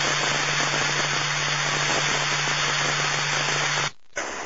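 Police scanner radio hiss: steady static from an open channel with a low hum under it. It cuts out briefly near the end, then the hiss comes back without the hum.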